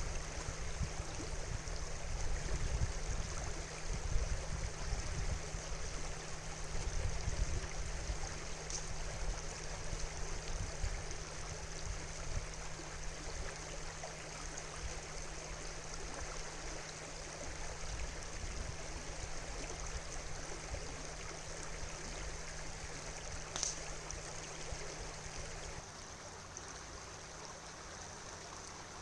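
River water flowing steadily, an even rushing, with a low rumble underneath that drops away near the end.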